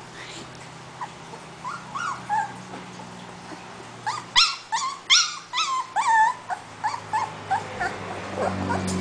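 Siberian husky puppy whining: a string of short, high-pitched whimpers and yips that rise and fall in pitch, coming thickest and loudest in a burst around the middle.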